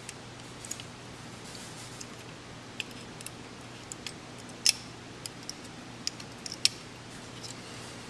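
Small irregular clicks and taps of circuit boards and header pins knocking together as a joystick shield's pins are lined up with an Arduino's header sockets, one click a little past the middle louder than the rest, over a faint steady hum.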